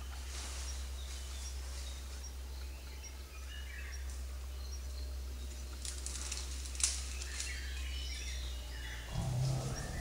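Forest ambience: scattered bird chirps and brief rustles over a steady low hum, with a short low-pitched sound near the end.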